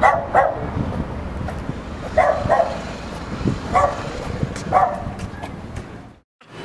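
A dog barking: about six short barks, mostly in pairs a few tenths of a second apart, with the pairs a second or two apart, over a low steady rumble of wind and street noise.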